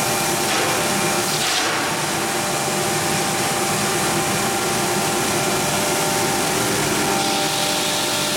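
PVC crusher (hammer mill) running steadily and grinding PVC board, a loud even rushing noise with a few steady whine tones; it turns briefly harsher and brighter about a second or two in.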